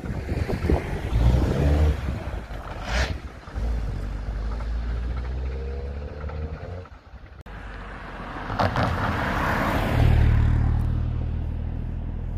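Road vehicles passing over an open level crossing: tyre and engine noise swells and fades twice over a steady low rumble.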